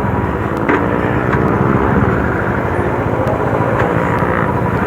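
Motorcycle engines running loudly as sport bikes ride past, their pitch gliding with the throttle, with a few sharp cracks.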